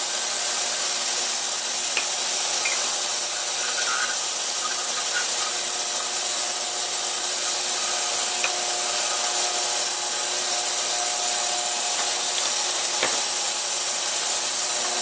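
Ultrasonic cleaner running: a steady high-pitched hiss that does not change, with a few faint clicks of small metal engine parts being handled.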